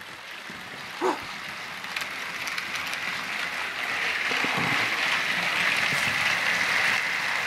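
Several battery-powered TrackMaster toy engines running in a line along the track, their motors and gears whirring with the wheels rattling on the rails. The sound grows steadily louder as the train comes closer.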